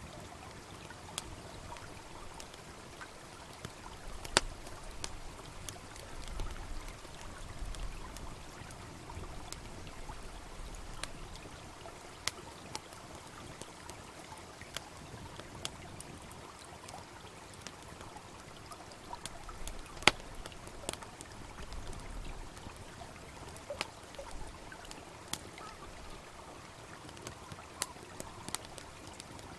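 Wood campfire crackling with scattered sharp pops over the steady rush of a babbling brook. The two loudest pops come about four seconds in and about twenty seconds in.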